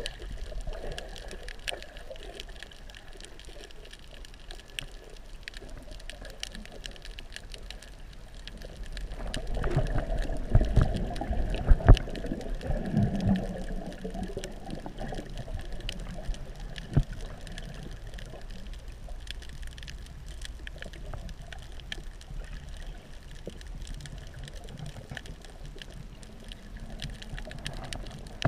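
Underwater sound through a submerged camera: a steady, muffled low noise with faint scattered clicks, and louder muffled knocks and sloshing from about 9 to 14 seconds in.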